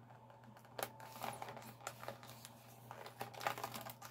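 Utility knife blade cutting along the edge of a plastic blister pack on its cardboard backing card: faint, irregular scratching and small clicks as the blade works through the plastic.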